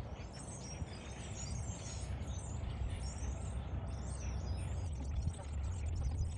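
Outdoor ambience: small birds chirping over a low steady rumble.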